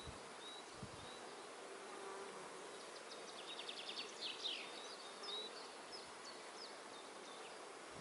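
Faint buzzing of honey bees flying around a beehive, with high-pitched chirps and a short fast trill partway through.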